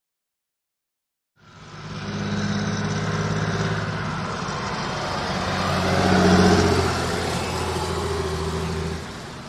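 Old Volvo S830 combine harvester running, its engine noise steady and swelling louder about six seconds in. It comes in abruptly after about a second and a half of silence.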